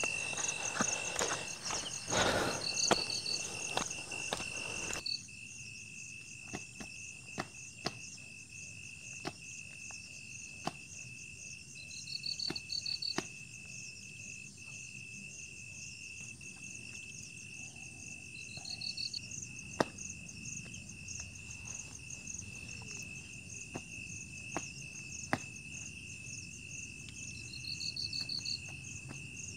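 Crickets and other insects calling in a chorus: a steady high whine under a fast pulsing trill, with a short higher trill every several seconds. Scattered light clicks and knocks run through it, with louder handling noise in the first five seconds.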